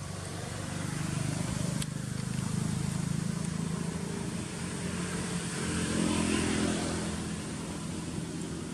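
A motor vehicle's engine humming, building from about a second in, swelling to its loudest around six seconds in, then easing off as it passes.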